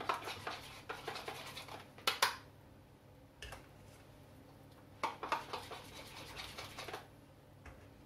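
A spoon scraping against a cooking pot and a small bowl as hot rice-pudding liquid is spooned into beaten egg yolks to temper them. It comes in two spells of quick scratchy strokes, with a sharper knock about two seconds in.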